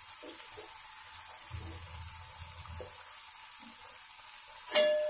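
Rice-flour crackers deep-frying in hot oil, a steady sizzle. Near the end a sharp metallic clink rings on, a metal utensil striking the pan.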